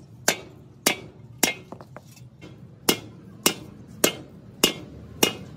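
Hand hammer striking the rim of a dished steel end cap for an air compressor tank: about eight sharp metallic blows, roughly one every 0.6 seconds, each with a brief ring, with a short pause about two seconds in.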